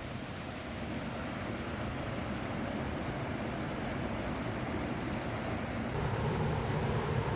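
Steady rush of moving water, a rumbling wash of noise with no distinct tones. About six seconds in it changes abruptly to a fuller, lower rush.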